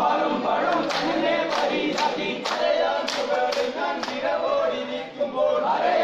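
A group of men singing a Poorakkali song together, with sharp hand claps keeping time about twice a second as they dance.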